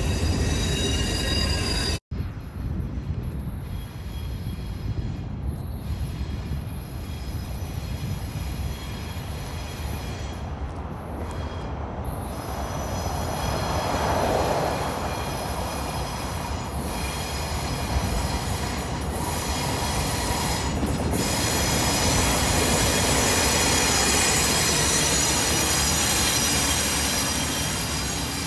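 Train rolling past with a steady low rumble and high, sustained wheel squeal from the rails. The sound cuts out for an instant about two seconds in, then continues, swelling somewhat louder later on.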